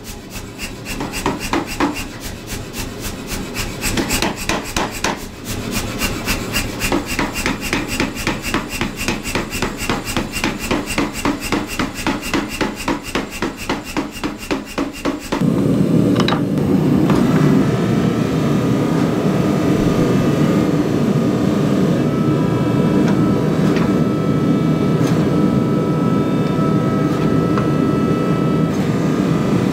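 Power hammer striking a glowing bar of leaf-spring steel between its dies in rapid, evenly spaced blows, several a second. About halfway through, the blows turn louder and heavier.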